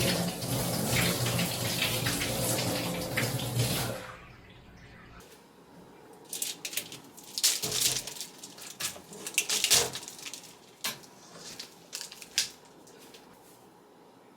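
Water running from a tap for about four seconds, then shut off, followed by a scattering of sharp clinks and knocks.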